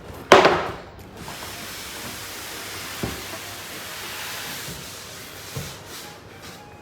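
Packaging being pulled off and handled: a loud crinkle in the first second, then a steady rustling hiss as the wrapping slides, with two soft knocks, about three and five and a half seconds in.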